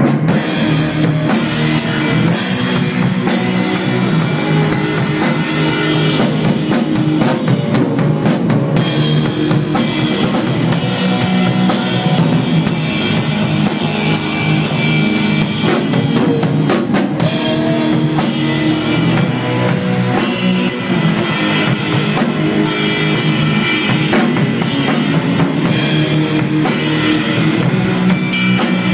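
Stoner rock band playing, with electric guitar, bass and a drum kit.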